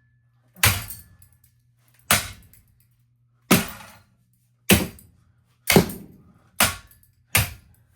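A ceiling fan being smashed up: seven sharp crashing impacts that come closer together, over a steady low hum.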